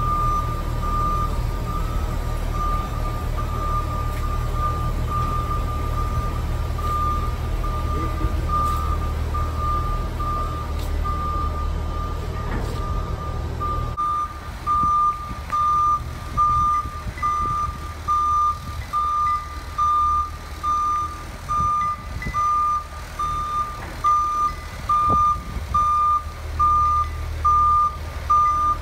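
Reverse alarm of a propane-powered Yale forklift beeping steadily about once a second as it backs up with a load, over the low rumble of its running engine. About halfway through the rumble drops away and the beeps stand out more sharply.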